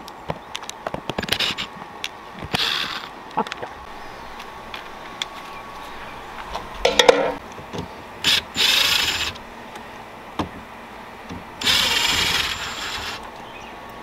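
Ryobi cordless drill turning screws at an RV entry-door lock in about five short runs, the longest about a second and a half near the end, with small handling clicks between runs.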